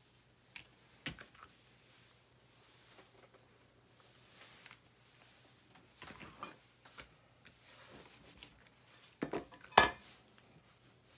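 Hands handling soft bread dough on a silicone baking mat, with a few scattered light taps and knocks on the counter; the sharpest pair of knocks comes near the end.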